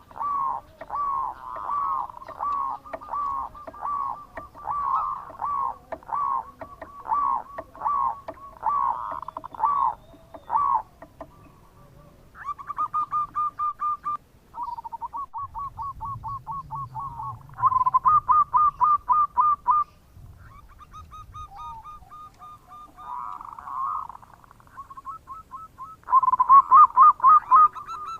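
Zebra dove (perkutut) cooing. It starts with a run of short, evenly spaced coos about one and a half a second. After about eleven seconds it switches to several quick staccato series of rapid coos, each lasting a couple of seconds.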